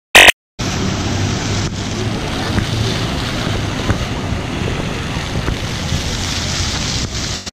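Steady rushing splash of plaza fountain jets, mixed with wind on the microphone. A brief loud tone-like blip sounds at the very start, before the water noise begins.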